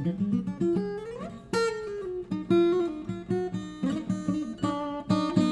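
Acoustic guitar playing an instrumental passage of a song, picked and strummed notes with a couple of sliding notes about a second in.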